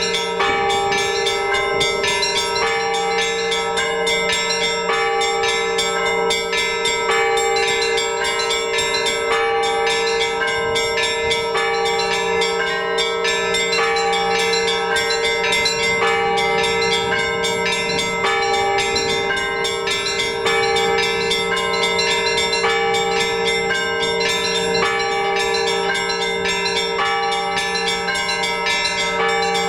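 Orthodox church bells rung by hand in a full peal: small bells struck in a quick repeating pattern over the continuous hum of the larger bells.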